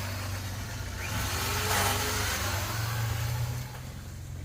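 A vehicle engine running steadily, working harder through the middle, then easing off in the last second.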